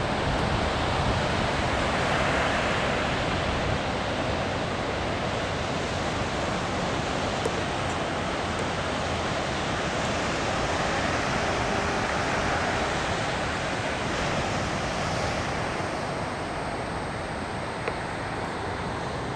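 Ocean surf breaking on a beach, a steady wash that swells and eases slowly, with wind rumbling on the microphone.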